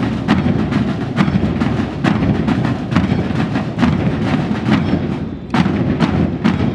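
Military marching band music for a parade march past, with a steady drum beat of about two strokes a second.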